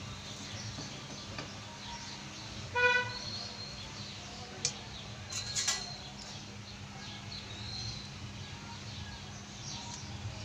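A short, single vehicle horn toot about three seconds in, followed a couple of seconds later by a few sharp clicks and knocks, over faint bird chirps and a steady low hum.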